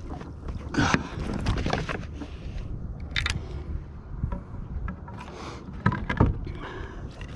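Scattered knocks, clicks and scrapes of fishing gear being handled aboard a kayak over a low rumble, with a sharper knock about six seconds in.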